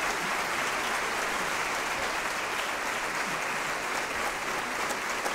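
Audience applauding steadily at the end of a stage performance, a dense even clapping with no music.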